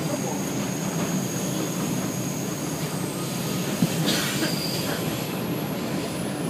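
New York City subway car (4 express) running between stations, heard from inside the car: a steady rumble of wheels on track with a thin, high wheel squeal over it.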